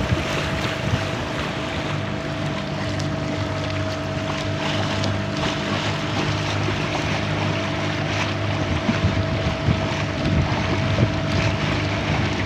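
Engine of a small outrigger fishing boat running steadily under way: a constant hum, with wind and rushing water around it.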